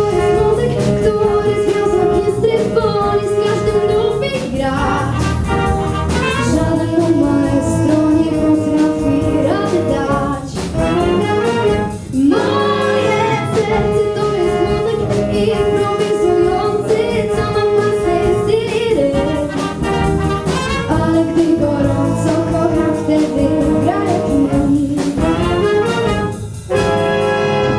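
Student big band playing a jazz number, with trumpets and trombones to the fore and a singer's voice carried over the band.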